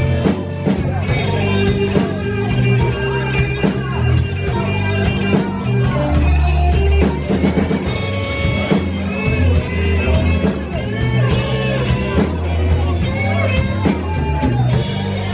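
A live band playing a slow blues: an electric guitar lead with bent notes over a bass line and a steady drum beat.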